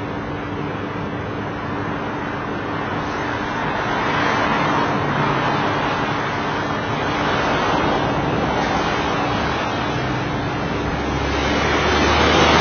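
Tram track cleaning machine working on the rails, heard from inside a car: a steady rushing noise over a low hum, swelling about four seconds in, again around eight seconds, and near the end.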